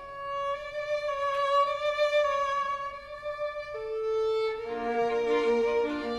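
Background music: a violin holding one long slow note, then moving lower, with a fuller accompaniment joining near the end.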